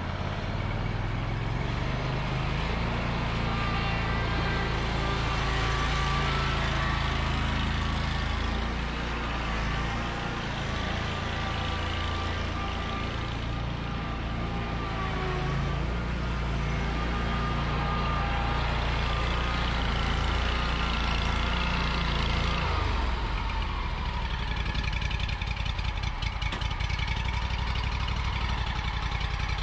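Engine of a new Bob-Cat Pro Cat 6000 zero-turn mower running steadily as the mower is driven around. About three-quarters of the way through, the deep low part of the sound drops away and the engine settles to a lighter, even running.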